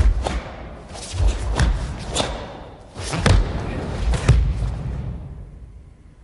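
Bare feet and hands thudding and slapping on a padded training mat as a karateka drops to the floor and kicks in the kata Unsu: a series of sharp thuds roughly a second apart, dying away after about five seconds.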